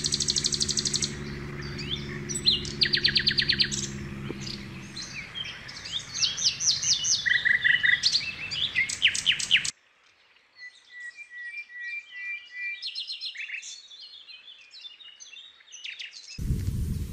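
Several wild birds singing and calling, a mix of quick chirps and rapid trills, with a low steady hum under the first few seconds. About halfway through the sound cuts abruptly, and the birdsong carries on fainter.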